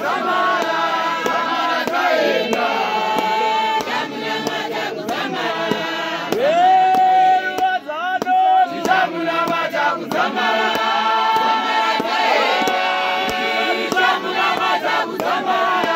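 A group of voices singing a hymn together, led by a man's voice. About six seconds in, a single voice holds a long note almost alone for two seconds before the others come back in.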